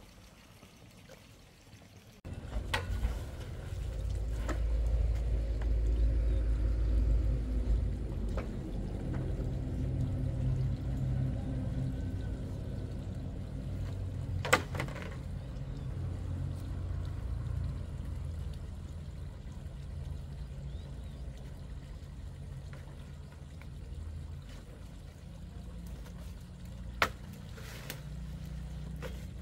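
Water sloshing and trickling with a heavy low rumble that sets in about two seconds in, broken by a few sharp clicks.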